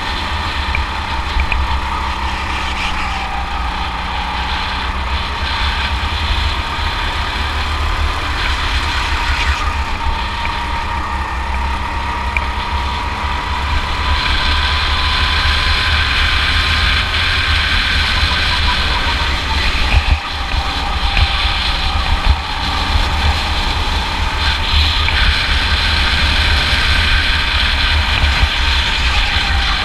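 Go-kart engine heard from onboard the kart under way, its pitch climbing slowly along the straights and dropping back about two-thirds of the way through before climbing again. A heavy low rumble of wind and vibration runs underneath.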